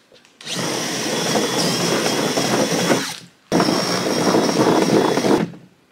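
Cordless drill driving screws in two runs: about three seconds, a short pause, then about two seconds, each with a steady high motor whine.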